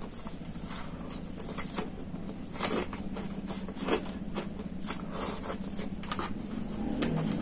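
Close-miked eating: a man chewing a mouthful of rice with lip smacks, and his fingers scraping and picking food from a foam takeaway box, heard as irregular sharp clicks and small crunches. A steady low hum sits underneath.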